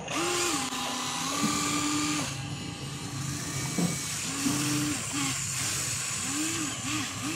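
Huina RC excavator's electric drive motors whining in short runs, pitch rising and falling as the boom swings and the bucket lifts and dumps, with a single click about four seconds in.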